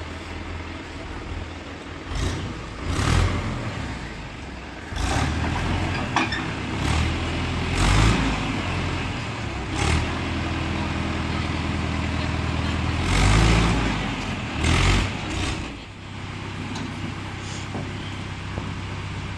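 Diesel engine of a JCB 3DX backhoe loader running under a steady low drone and revving up again and again as it digs and loads mud. It settles to a steadier, quieter run near the end.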